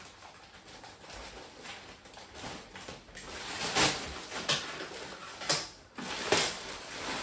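Plastic courier mailing bag rustling and crinkling as it is cut and pulled open by hand, with several sharper, louder crackles in the second half.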